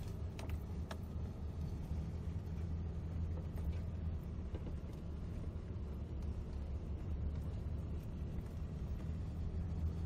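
Steady low engine drone and rolling rumble of a vehicle driving slowly over grass, heard from inside the cab, with two light clicks in the first second.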